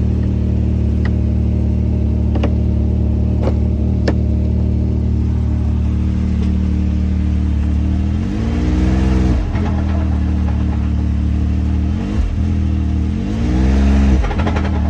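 A 2022 Can-Am Maverick X3 Max XRS Turbo RR's turbocharged three-cylinder engine idling steadily, with a few sharp clicks in the first four seconds. It is revved up and back down twice, about eight and thirteen seconds in, with a short blip between. The owner calls a sound from it weird.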